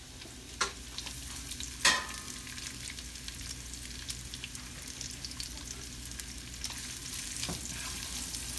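Garlic and onions sizzling in hot oil in a pan as they are sautéed and stirred, the utensil knocking against the pan three times, loudest about two seconds in with a brief ring.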